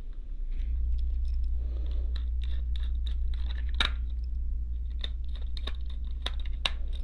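Small screwdriver turning screws into an HO-scale model steam locomotive as the body shell is fastened back on its chassis: scattered sharp clicks and small scrapes, the loudest about four seconds in and several more near the end. A steady low hum runs underneath and grows louder about half a second in.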